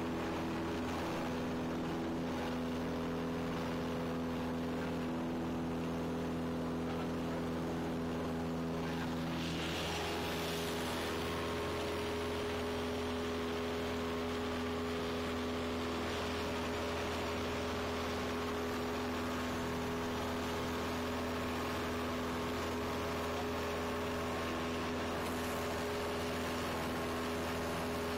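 Cessna 172 Skyhawk's piston engine and propeller droning steadily at climb power, heard from inside the cabin. Its tone and hiss shift slightly about ten seconds in.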